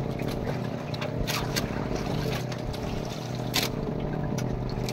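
A small boat's engine running steadily, a low even hum under a wash of water noise, with a few short clicks and one sharper click about three and a half seconds in.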